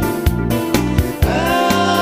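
A song with a steady drum beat of about two beats a second. About a second in, a singing voice comes in over it.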